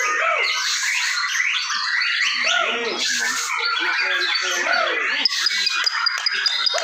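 Several caged white-rumped shamas (murai batu) singing at once, a dense overlap of rich whistled phrases, rising and falling glides and chattering notes. Near the end a high, thin note is repeated rapidly.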